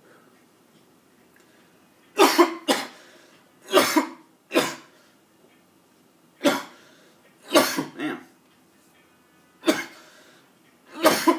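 A man coughing hard after inhaling a bong hit of smoke: a fit of about nine harsh coughs, some in quick pairs, starting about two seconds in and coming roughly a second or so apart.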